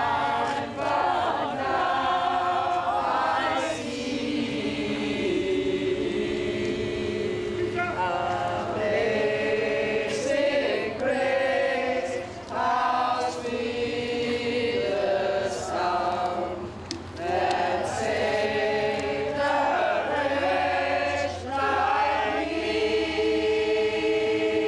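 A group of voices singing together like a choir, in long held phrases with short breaks between them.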